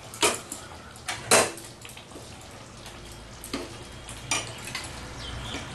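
Metal utensil and lid clinking against a cooking pot as covered, simmering chicken is uncovered and checked: a few sharp knocks spaced out, the loudest about a second in.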